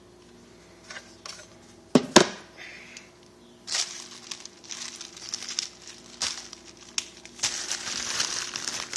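Packaging being handled and unwrapped, crinkling and rustling from about four seconds in. Before that come two sharp clacks about two seconds in, the loudest sounds.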